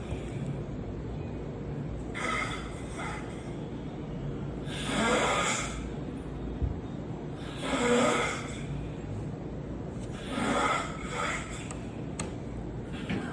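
A man snoring in deep sleep: four loud, rasping snores at an even pace of about one every three seconds, with quieter breathing between them.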